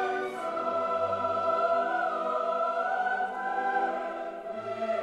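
Background choral music: voices singing long held notes over a full, sustained accompaniment.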